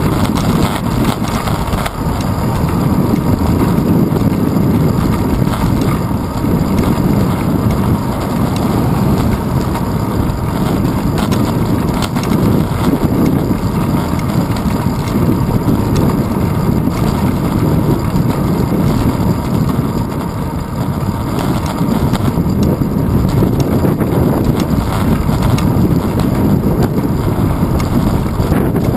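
Wind buffeting a handlebar-mounted GoPro Hero 2 on a moving bicycle, mixed with rumble from the tyres on cracked asphalt: a loud, steady, low rushing noise.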